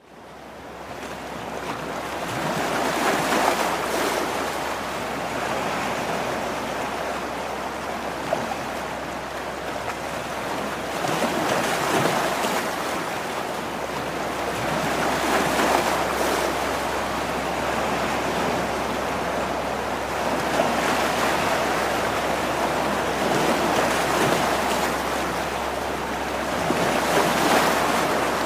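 Sea waves washing onto a rocky shore, the surf swelling and ebbing about every four seconds, fading in at the start. A few faint knocks are heard among the waves.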